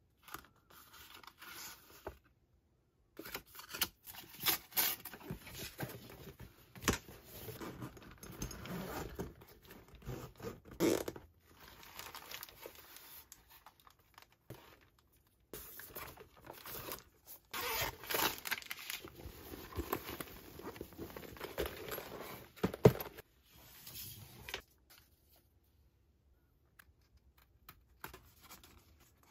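Unboxing handling sounds: a soft shoulder bag unzipped, then fabric and plastic packaging rustling and scraping as the parts are lifted out, with scattered sharp clicks, the loudest about two-thirds through. Near the end there is faint scratching as a craft knife slits a seal sticker.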